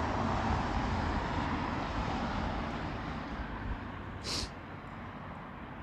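Street traffic: a vehicle passing and fading away, tyre and engine noise dying down over a few seconds, with one short high hiss about four seconds in.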